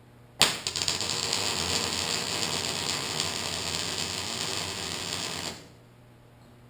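MIG welder arc crackling as a weld is run on a steel pipe joint. It starts with a sharp strike about half a second in, holds a steady dense crackle, and cuts off about a second before the end.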